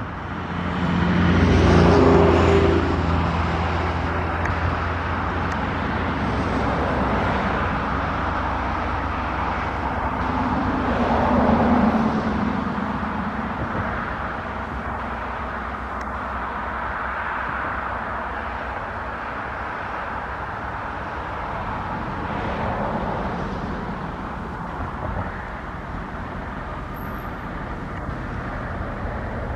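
Road vehicle noise: a steady low engine hum under traffic rumble, swelling louder about two seconds in and again around eleven seconds in.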